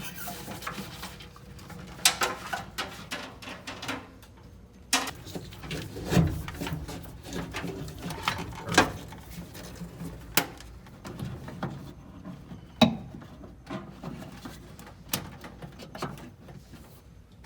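Wiring harness bundle being handled and pushed through a firewall grommet: rustling of taped wires with irregular sharp clicks and knocks as connectors and the bundle strike the bodywork.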